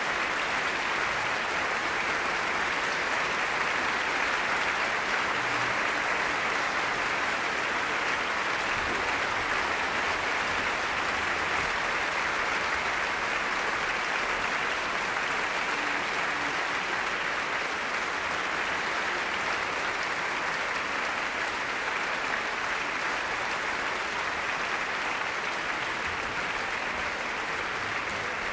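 Large concert audience applauding, a dense, even clapping that holds steady throughout.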